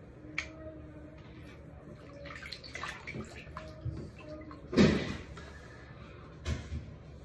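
Water sloshing and splashing as fidget toys are handled and stirred in soapy water, with scattered small clicks. There is a louder splash about five seconds in and another near the end.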